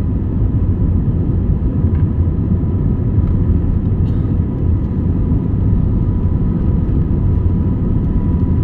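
Steady low rumble inside a jet airliner's cabin as the engines run and the plane taxis, with a faint steady whine above it.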